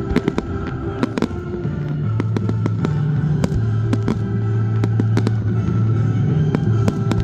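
Aerial fireworks going off in a rapid series of loud bangs and crackles, thickest in the first second or so and again near the end, over music with held bass notes that grows louder partway through.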